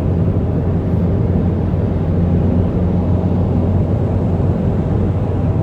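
Steady low drone of a car driving at an even speed: engine and road noise from a Toyota Corolla iM with a 1.8-litre four-cylinder.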